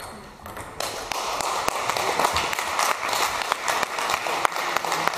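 Spectators applauding, rising in about a second in and continuing steadily, at the end of a table tennis rally.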